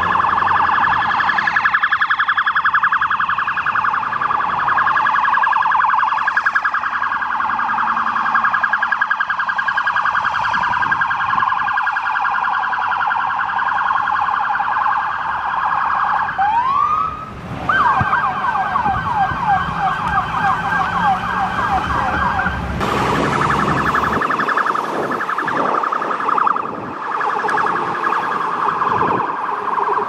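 Police SUV's electronic siren on a fast yelp. About two-thirds of the way in, it breaks off with a quick rising sweep and then yelps again. In the last several seconds the yelp gives way to a rougher, noisier sound.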